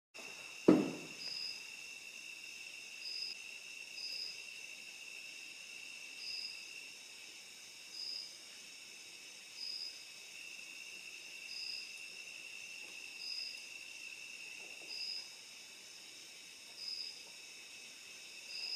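A single sharp knock about a second in, then a quiet background of insects: a steady high trill with a short high chirp about every two seconds.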